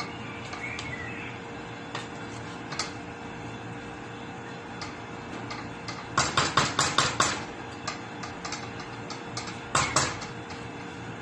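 A spoon clinking and scraping against a stainless steel pot as food is stirred: a quick run of about eight clinks about six seconds in and a shorter cluster near the end, with scattered single taps between. A steady faint hum runs underneath.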